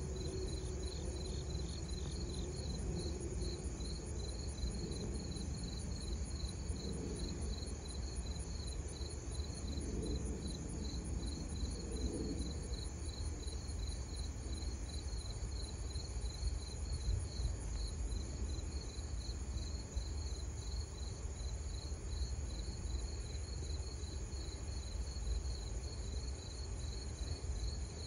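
Insects chirping steadily in a rapid, even pulse, high-pitched, over a low background rumble.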